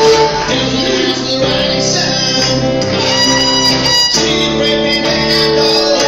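Live string-band music: a bowed fiddle playing over strummed guitar.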